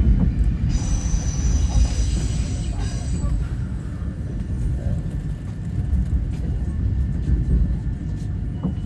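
CR200J Fuxing train running on the track, a steady low rumble. Between about one and three seconds in, a high whine sits on top of it.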